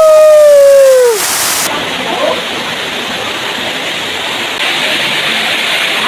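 A loud, long held yell that falls in pitch and stops about a second in, then the steady rushing of a waterfall cascading down a rock face.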